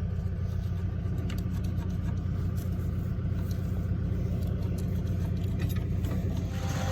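Tractor engine running steadily with a low rumble, with a few faint scattered clicks over it.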